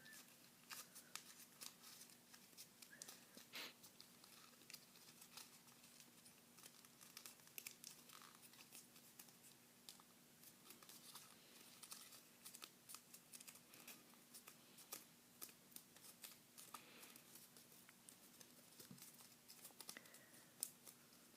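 Faint crinkling and irregular crisp ticks of a sheet of paper being folded and creased by hand.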